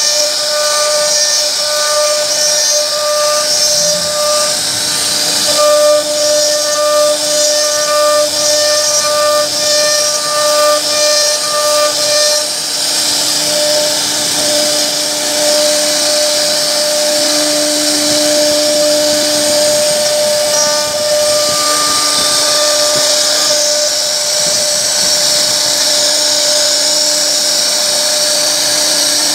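CNC router spindle carving a solid wood door panel: a steady high-pitched whine over the hiss of the bit cutting wood. The whine pulses about once a second for the first twelve seconds, then holds steady.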